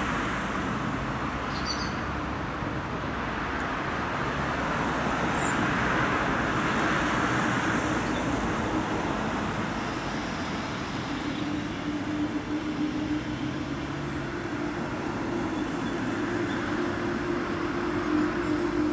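Double-deck regional push-pull train approaching and running in to stop at the platform: a steady rumble of wheels on rail. A humming tone comes in about halfway through and grows stronger toward the end.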